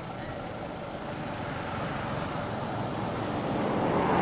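Road vehicle passing, its noise building steadily as it approaches.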